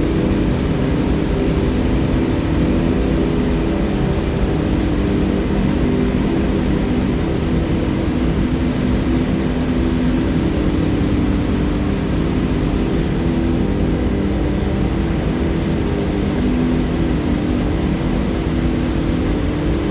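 Flowing river water: a steady, low rushing noise that holds even throughout.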